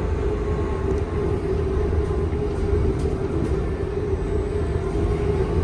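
Cabin sound of a UTTZ Gorozhanin trolleybus running on its batteries instead of the overhead wires: a steady electric hum with a constant mid-pitched tone over a low rumble.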